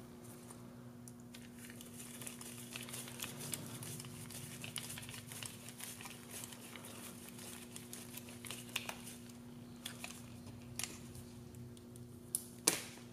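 Light clicks, creaks and rustles of small parts being worked as a #4 self-tapping sheet metal screw is run into a soft plastic frame part, over a steady low hum. A few sharper clicks stand out in the second half, the loudest near the end.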